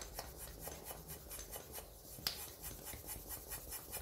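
Quick, repeated scraping strokes on the rubber inner tube of a Xiaomi M365 scooter, several a second, as the tube is rubbed and worked by hand during a puncture repair, with one sharper click about two seconds in.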